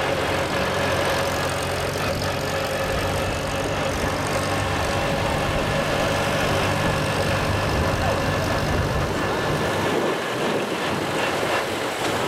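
Small red tractor's engine running steadily as it tows a wagon, over a steady rush of road and wind noise; the engine note drops away about ten seconds in.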